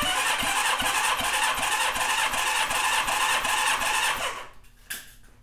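Honda CB550 four-cylinder engine cranked over on its electric starter for a compression test, a steady whirring with a rapid regular pulse from the compression strokes. It stops about four seconds in, followed shortly by a brief click.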